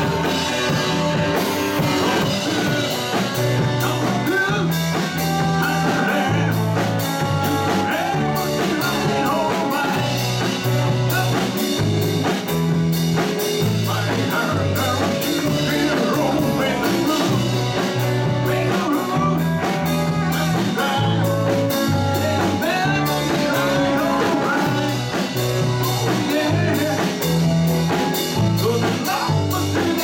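Live band playing a bluesy rock song: electric guitars, bass, drum kit, congas and keyboard, with a steady walking bass line and beat, and a male lead voice singing.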